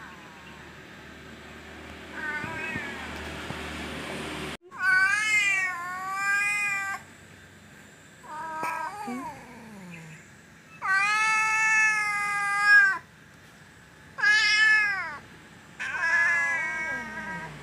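Domestic cat meowing repeatedly: about six drawn-out meows with short pauses between them, the longest held for about two seconds.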